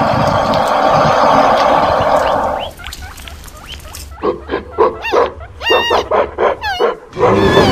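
Animal calls: a long, rough roar for the first two and a half seconds, then a run of short, high, pitched cries sliding up and down, and another pitched call near the end.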